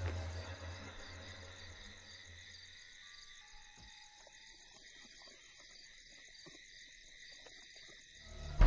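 Crickets chirping steadily in a night-time ambience, with a low drone fading out over the first few seconds.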